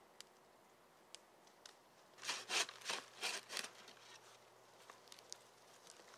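A few light clicks, then a quick run of about six scraping strokes.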